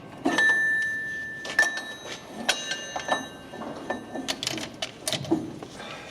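Steel knocking and clinking as a heavy gear is worked onto a splined drive shaft, several knocks leaving the metal ringing, the first ring lasting over a second.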